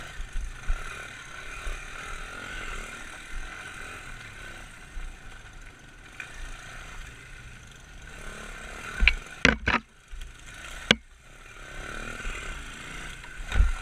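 Pit bike engine running as the bike is ridden over a rough trail, with rattling and clatter from the bike, and a cluster of loud sharp knocks in the last third as it hits bumps.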